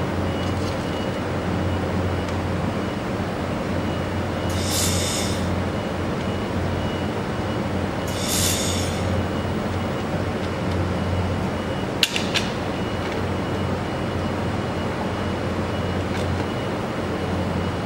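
Handheld fiber laser welder firing two spot welds on a metal pot seam, each a short hiss under a second long, over a steady machine hum. A sharp click about twelve seconds in.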